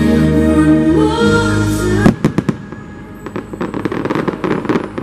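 Fireworks show music, with sustained chords, stops abruptly about two seconds in. A few sharp firework bangs follow, then a run of rapid crackling pops from a glittering aerial burst.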